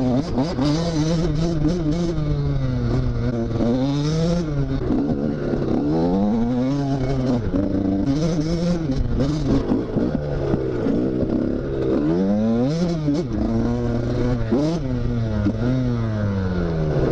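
KTM SX 85's two-stroke single-cylinder engine being ridden hard, revving up and dropping back again and again, the pitch climbing and falling every second or two.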